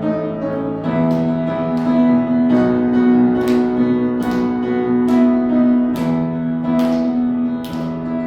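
Instrumental introduction of a worship song: acoustic guitar strummed in a steady rhythm over held chords, a strum roughly every three-quarters of a second.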